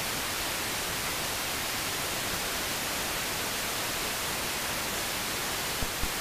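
Steady hiss of an FM radio tuned between stations: wideband FM static from an RTL-SDR (R820T) receiver with no signal on the frequency. A couple of brief clicks sound near the end.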